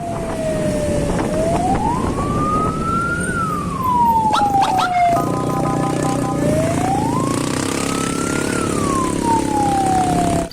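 Emergency siren in wail mode, its pitch rising slowly and falling back twice, over steady road and wind noise. A vehicle horn sounds for about a second and a half midway through.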